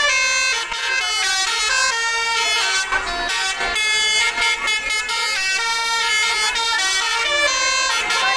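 Indonesian 'telolet' bus horn (Basuri multi-tone air horn) playing a fast melody of changing notes, with a short break about three seconds in.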